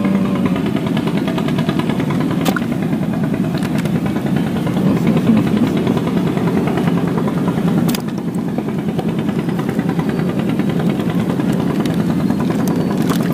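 A small boat's engine running steadily at an even speed, with a couple of sharp clicks over it.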